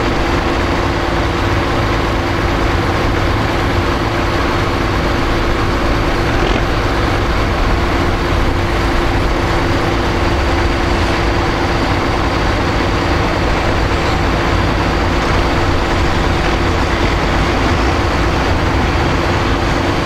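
Large diesel farm tractor engines running steadily and loudly, with one steady tone held over the engine noise.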